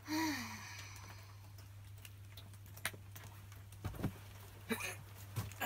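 Faint, scattered light clicks and knocks from a wooden hand distaff and its yarn being handled for spinning, over a steady low hum. A brief falling squeak comes at the very start.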